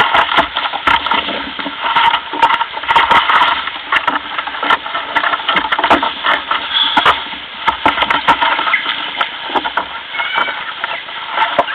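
Water splashing and crackling against a sea kayak's hull close to the deck-mounted microphone as the boat moves along, with many irregular sharp clicks and uneven swells in level.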